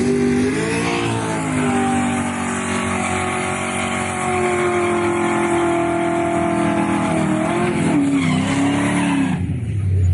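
A car's tires squealing hard with its engine running at high revs, as in a burnout or drift. The pitch climbs about a second in, holds steady, then wavers and falls away near the end.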